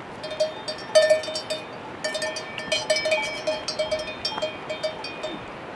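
Bells on walking water buffaloes clanking irregularly, many quick ringing strikes one after another.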